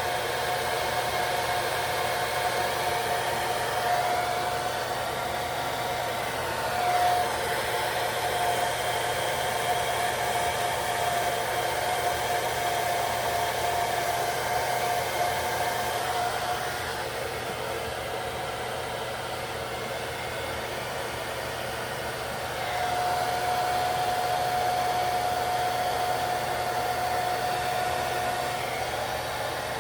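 Hand-held hair dryer blowing steadily with a whining tone, drying lace wig adhesive. It goes quieter and loses its whine for several seconds past the middle, then comes back.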